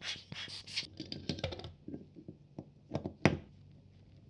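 Hand tools working on a small metal film-camera body. A run of short scratchy bursts comes about three a second through the first second, then light clicks and taps, and two sharp clicks about three seconds in, the second the loudest.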